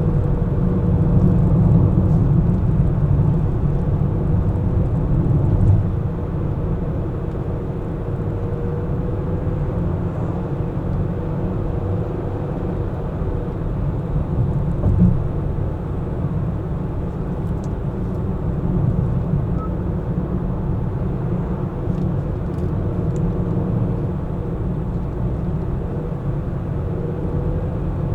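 A car being driven in city traffic: a steady low rumble of engine and tyre noise with a faint wavering hum above it. It is a little louder for the first six seconds, with a brief thump about fifteen seconds in.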